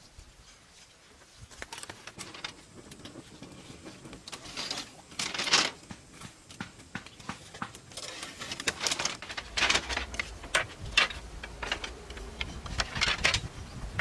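Bamboo poles and slats being handled and fastened: irregular knocks, clicks and short scraping rustles, coming thicker in the second half.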